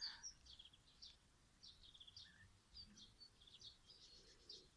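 Faint chirping of small songbirds: many short, high calls in quick succession, some overlapping.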